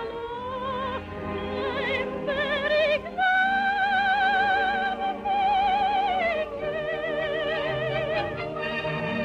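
Operatic soprano singing with heavy vibrato over orchestral accompaniment, climbing to a long held high note in the middle, from a 1949 radio broadcast recording with little top end.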